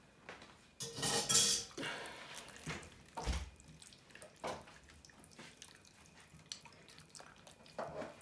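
Hands mixing raw chicken pieces in a wet yogurt-and-spice marinade in a stainless steel bowl: scattered wet squelches and slaps, with a denser burst of them about a second in and a dull knock a little after three seconds.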